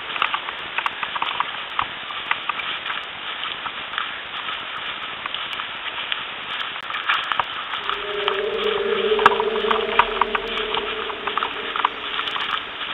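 Footsteps crunching through leaf litter and twigs on a forest floor, with many small irregular cracks and rustles. A steady droning tone comes in about two-thirds of the way through.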